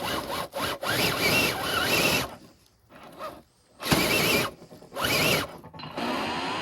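RC rock crawler's electric motor and gears whining in short stop-start throttle bursts, with a near-silent pause midway.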